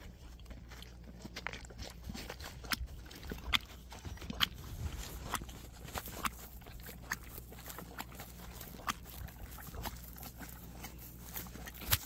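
Tennessee Walking Horse licking and mouthing molasses off a paint-loaded canvas sealed in a plastic zip bag: irregular clicks and smacks of lips and tongue against the plastic.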